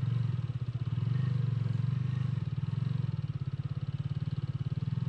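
Motorcycle engine pulling in second gear on a snow- and ice-covered road, its revs easing off and picking up again a couple of times as the rider works the throttle while the bike skids and struggles to climb.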